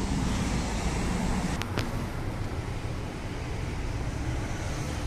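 Town-centre street traffic: a steady low rumble of car engines and tyres, with two sharp clicks close together about a second and a half in.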